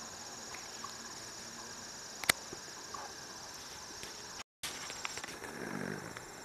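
Steady high-pitched chorus of crickets and other insects trilling in the woods. A single sharp click about two seconds in, a brief dropout past the middle, then rustling near the end.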